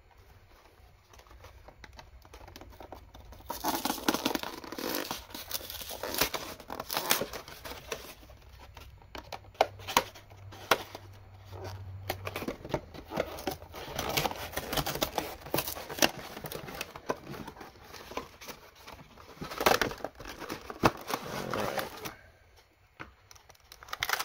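Cardboard and clear plastic blister packaging of a trading-card pin collection box being torn open and pulled apart: tearing card, crinkling plastic and sharp crackles. It starts about three and a half seconds in and stops about two seconds before the end.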